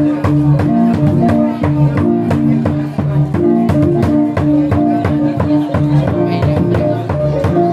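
Jrai gong-and-drum ensemble music: many struck, ringing pitched notes over a drum beat in a brisk, steady rhythm.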